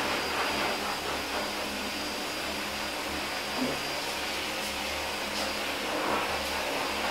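Steady whirring hiss with a thin high whine, from a fan or small motor. Under it, faint wet rubbing as hands scrub a dog's lathered coat.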